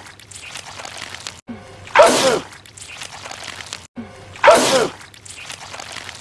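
A man's loud sneeze, the same short clip looped so that it repeats every two and a half seconds: two sneezes, about two and a half seconds apart.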